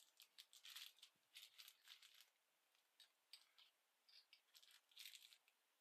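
Faint crinkling of a small plastic bag and light rattling as the bag of screws and the plastic wall-mount bracket are handled, in short scattered bursts.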